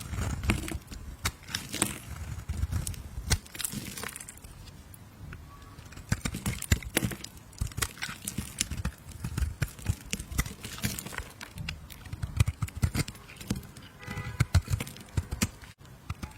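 A knife cutting and carving into a bar of soap: a dense run of crisp crackles, scrapes and small taps as the blade goes through and pieces come away, easing off for a moment about four seconds in before picking up again.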